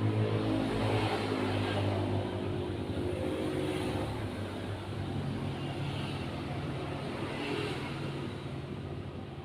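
A motor vehicle's engine hum that slowly fades as the vehicle moves away.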